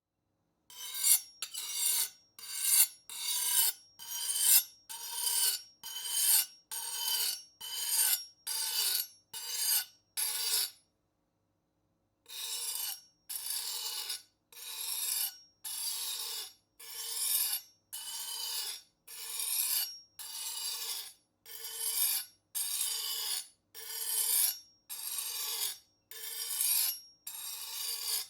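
Knife blade being sharpened: a run of short scraping strokes, a little more than one a second, each swelling and then cutting off. The strokes stop for about a second and a half around ten seconds in, then carry on at a slightly slower pace.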